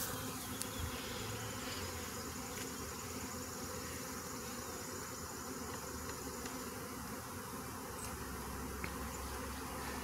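A honey bee swarm buzzing steadily in the air around an open hive box as the swarm is being hived.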